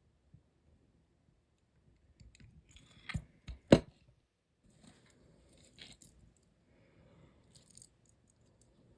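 Small hard objects clinking and knocking, a few sharp clicks about a third of the way in, with the loudest near the middle and fainter clinks later.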